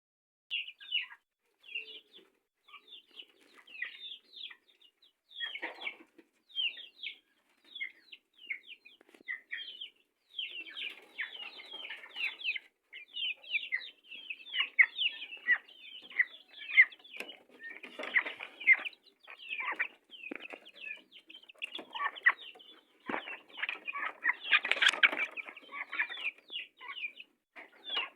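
Kampung chickens clucking and calling in their coop: many short, high calls one after another, with a louder, noisier burst of activity near the end.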